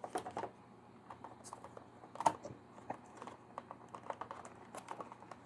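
Light, irregular clicks and taps of hands handling a replacement laptop battery and plastic laptop parts.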